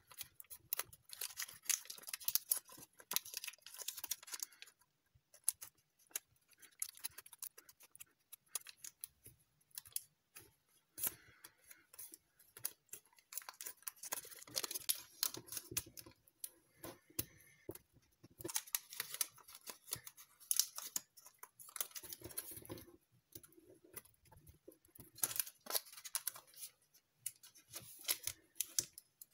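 A small square of metallic foil paper being folded and creased by hand: irregular crinkling and crackling with sharp little clicks, coming in clusters with short pauses between folds.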